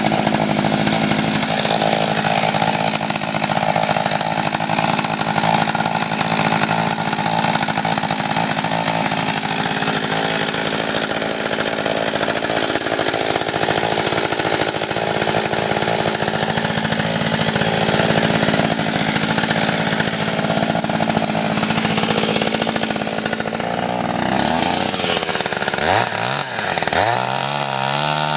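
Small petrol engine running steadily at a constant pitch, with its revs rising and falling several times near the end.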